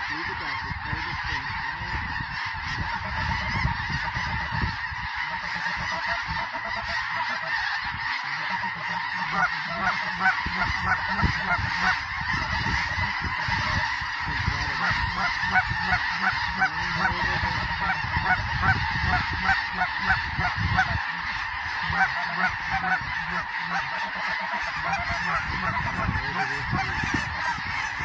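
A large flock of snow geese calling continuously: a dense, unbroken din of short, high honks. A steady low rumble sits underneath.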